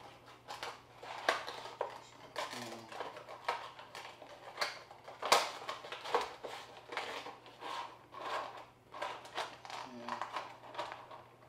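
Cardboard box flap and clear plastic packaging insert crinkling and crackling in a string of sharp handling noises as a Funko Pop vinyl figure is pulled out of its box and plastic tray.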